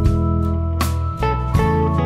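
Instrumental background music with plucked notes over a steady bass.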